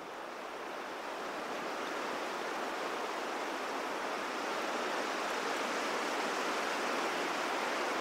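Clark Fork River water rushing steadily, a field recording that fades in gradually and grows louder.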